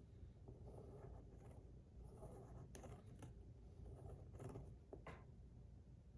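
Faint scratchy rubbing in several short strokes: adhesive tape being worked and pressed down by hand onto a small fidget toy.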